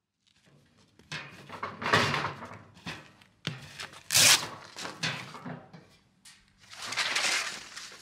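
Fabric carrying case being handled and pulled off a stainless steel fire pit: a series of rustling, scraping bursts, the sharpest about four seconds in.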